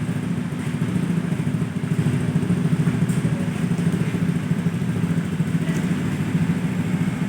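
Honda Scoopy scooter's single-cylinder engine idling steadily while it warms up.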